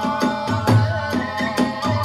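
Kagura hayashi accompaniment for a dance: a large barrel drum beating a brisk, driving rhythm of several strokes a second under the held, slightly wavering melody of Japanese transverse bamboo flutes, in the fast eight-beat hachi-chōshi style of Iwami/Asuna-line kagura.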